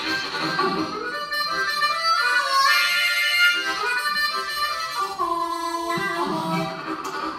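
Solo harmonica, cupped in both hands and played close into a microphone, sounding shifting chords and held notes, with one long note about five seconds in.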